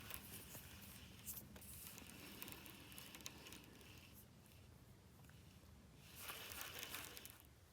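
Near silence: a faint steady hiss with a few soft clicks, and a short swell of louder hiss about six seconds in.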